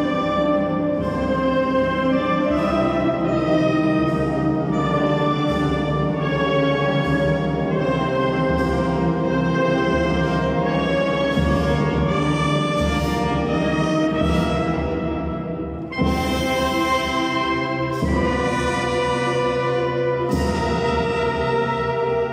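Wind band of clarinets, saxophones and brass playing a slow funeral march in sustained chords. A brief dip about two-thirds of the way through gives way to a sudden loud entry of the full band, with further accented chords near the end.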